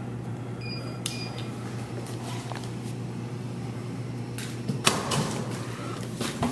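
Snack vending machine running, its motor turning the spiral coil to push the selected bag of snacks forward. About five seconds in the bag drops into the delivery bin with a knock.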